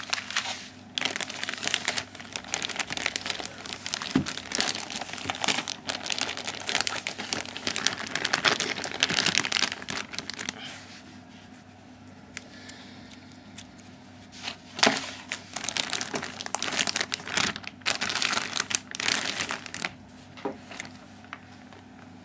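Packaging wrap being pulled off a new netbook, crinkling and rustling in two long stretches with a quieter pause between them, and a sharp knock about two-thirds of the way through.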